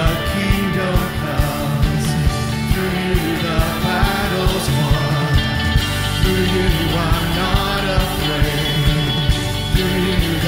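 Live church worship band playing an upbeat rock-style song: a steady drum beat, bass and electric guitar, with voices singing along.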